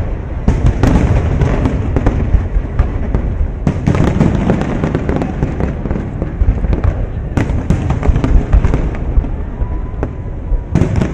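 Aerial fireworks shells bursting in a dense barrage, sharp bangs following one another every fraction of a second over a continuous low rumble.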